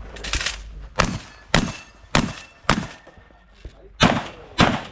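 Six shotgun shots in quick succession: four about half a second apart, a pause of just over a second, then two more.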